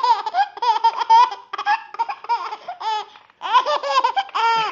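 Baby girl laughing in a string of high-pitched laughs, breaking off briefly about three seconds in and then laughing again.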